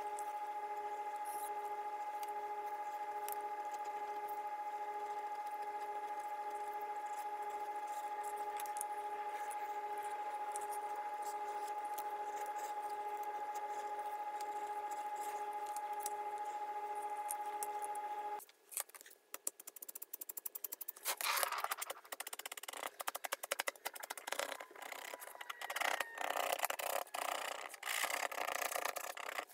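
A steady hum with faint light scrapes, which stops suddenly about two-thirds of the way through. Then a hand edge tool scrapes along the edge of a leather holster piece in quick, uneven strokes.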